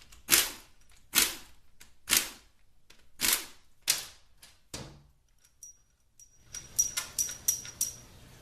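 Hand tool work with a ratchet and 13mm socket on a 4L60E transmission's pump bolts. First come sharp metallic clacks about once a second, six in all. After a short pause comes a run of lighter, quicker ticks with a faint high ring near the end.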